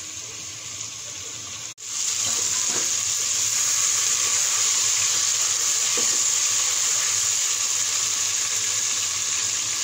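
Chicken pieces frying in hot oil in a pot, a steady sizzle. After a brief dropout about two seconds in, the sizzle is louder.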